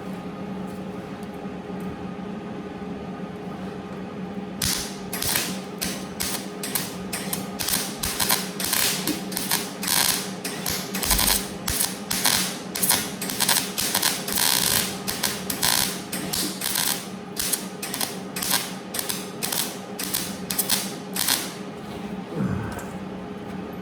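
Welder filling plug-weld holes in a sheet-steel car quarter-panel patch, in a run of short crackling bursts several a second that starts about four seconds in and stops near the end. It is burning through the thin metal a little in places. A steady hum sits under it throughout.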